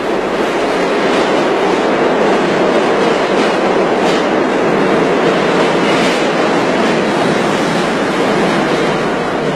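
New York City subway train running through the station: a loud, steady noise of wheels on rail with some clatter, swelling in at the start.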